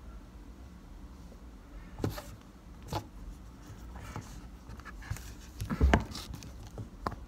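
Handling noise from a makeup brush and palette worked close to the microphone: a few short knocks and rustles, the loudest about six seconds in, over a low steady hum.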